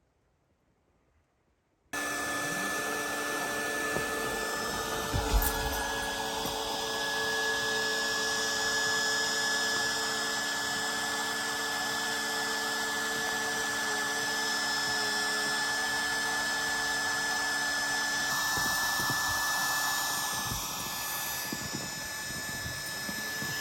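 A motor-driven machine running steadily, cutting in abruptly about two seconds in, with a constant high whine over its noise.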